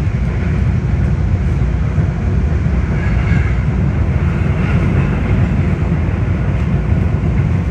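Miami Metrorail train running along the track, heard from inside the car: a steady rumble of wheels and running gear.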